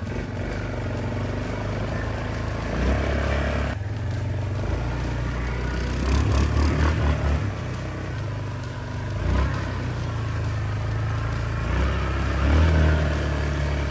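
Yamaha 450 four-wheeler's single-cylinder engine running through a shallow creek, the throttle easing on and off several times, with water splashing around the wheels.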